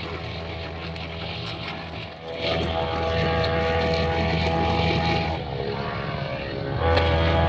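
Small brush cutter engine running with a steady high whine, throttled up about two and a half seconds in, easing back briefly around five seconds and revving up again near the end.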